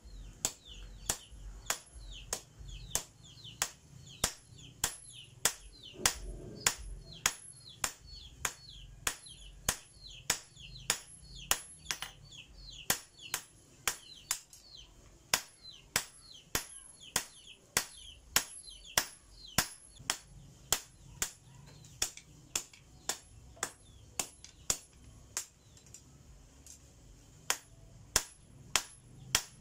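Hand hammer forging a red-hot steel knife blade on a small block anvil: sharp, even strikes about two a second.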